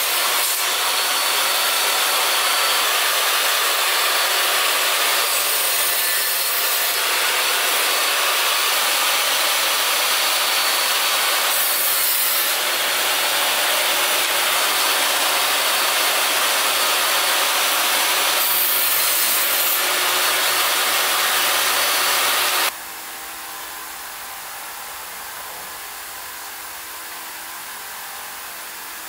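Table saw running and cutting thin wooden boards: a loud, steady noise that brightens briefly three times, about six seconds apart. About three quarters of the way in it cuts off abruptly, leaving a quieter steady hum.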